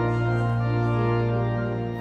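Organ music: one full chord with a strong low bass note held steadily, moving to a new chord at the very end.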